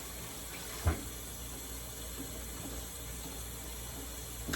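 A single short knock about a second in, over a steady background hiss.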